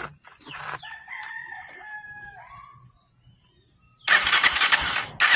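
A rooster crows about a second in. Near the end the Honda TMX 125's single-cylinder engine is suddenly cranked over in quick pulses without firing, because there is no spark from the ignition's primary circuit.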